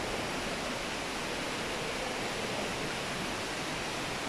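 Steady, even rush of running water, unchanging throughout.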